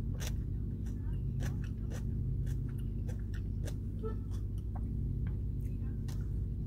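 A person chewing food, with scattered small mouth clicks and light taps of a plastic fork, over a steady low hum inside a car's cabin.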